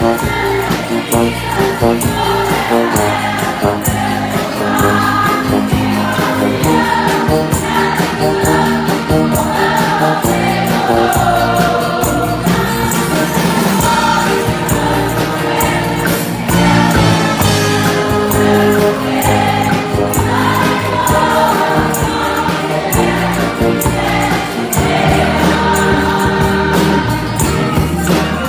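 Choir singing a gospel hymn over instrumental accompaniment with a steady percussive beat.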